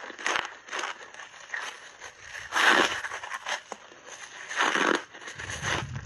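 Close-up crunching as blueberry foam reshaped ice, coated in matcha powder, is bitten and chewed in big bites. It comes as a series of crisp crunches, the loudest about two and a half seconds in and again near five seconds.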